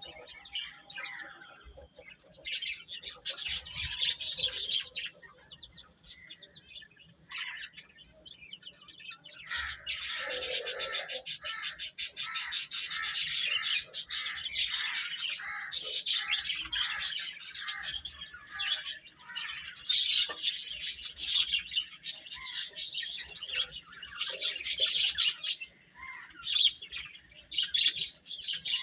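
Baby chickens peeping: many rapid, high-pitched chirps overlapping. The chirping thins out for a few seconds early on and becomes a dense, near-continuous chorus from about ten seconds in.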